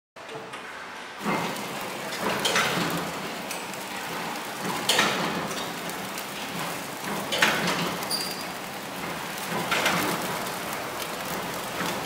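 KIZUI C-600R flow-wrapping machine running, wrapping dry noodle nests in plastic film: a steady rattling, hissing mechanical noise with a sharp clack about every two and a half seconds.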